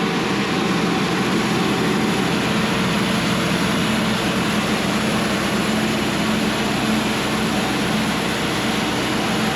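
Cook's AC-36 bandsaw mill's diesel engine running steadily at throttle, with the band blade spinning as the saw head feeds forward along the log.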